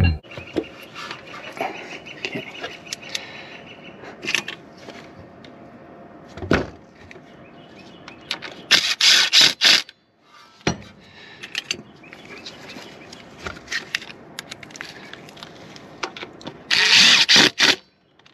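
A Ryobi ONE+ brushless cordless driver runs in bolts on the engine's timing cover in short trigger pulses, in two groups: about 9 s in and again near the end. A few knocks of tools and parts come between.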